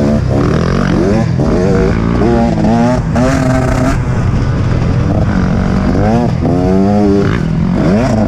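Dirt bike engines revving hard, the pitch climbing in repeated sweeps and dropping back as the throttle is worked and gears change, over a steady low rumble.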